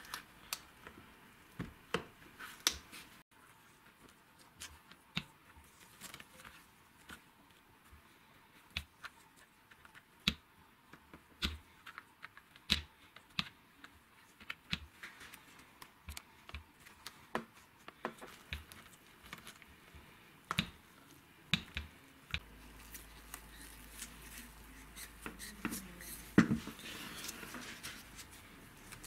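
Light, irregular clicks and taps of plastic housing parts and wires being handled while a hammer drill is reassembled, with one louder knock near the end. A low hum comes in about two-thirds of the way through.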